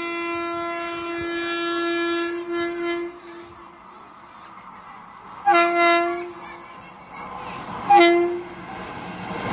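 Warning horn of a WAP-5 electric locomotive on an express train approaching to run through a station at speed: one long steady blast of about three seconds, then two short blasts a couple of seconds apart, with a faint rumble of the oncoming train between them.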